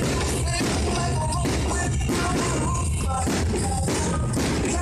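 Pop music with singing over a steady, heavy beat, playing continuously at an even level.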